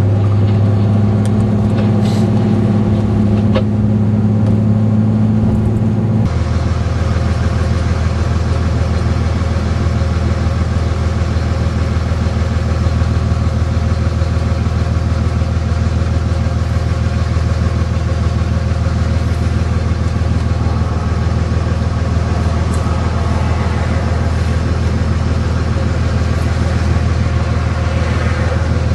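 Steady low drone of a car engine and road noise while driving. About six seconds in, the tone drops slightly and becomes broader, as with a change of gear or road surface.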